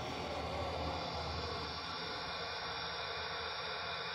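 Steady faint hum and hiss of an H0 model train running along the track, with no distinct clicks or squeals.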